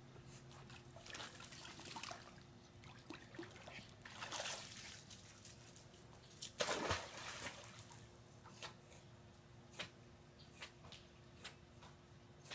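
Quiet water sounds of a West Highland White Terrier in a swimming pool: sloshing and dripping as she climbs out at the edge, then a louder splash a little under seven seconds in as she jumps back in, followed by small splashes and drips as she swims.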